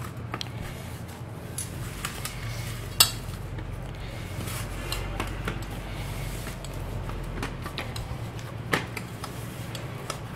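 Hands kneading a soft khoya-and-flour dough on a steel plate, with scattered light clicks and knocks against the metal, a sharper one about three seconds in, over a steady low hum.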